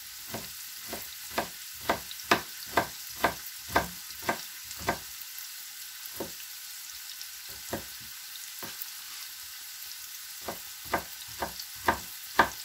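Kitchen knife slicing a carrot on a plastic cutting board: a series of sharp chops, about two a second, thinning out to a few strokes in the middle, then picking up again near the end.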